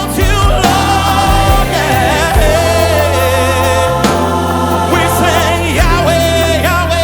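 Live gospel worship music: a choir of singers holding long notes with vibrato over keyboards, bass and drums.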